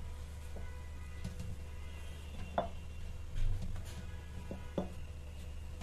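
A hand punching down risen yeast dough in a glass bowl and turning it out onto a floured counter: a few short, scattered knocks and one duller thump about three and a half seconds in.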